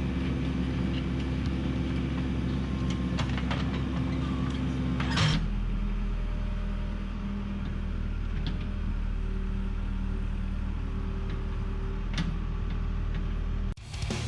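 Backhoe engine running steadily, with a few light clanks. About five seconds in there is a sharper clank and the engine settles to a lower note. The engine cuts off abruptly just before the end.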